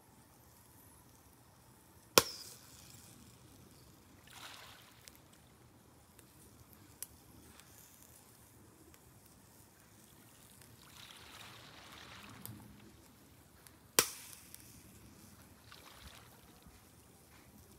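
Lumps of charcoal in a shichirin grill cracking sharply twice, about two seconds in and again about fourteen seconds in, with a faint tick between. Under them, a soft wash of ocean waves swells and recedes twice.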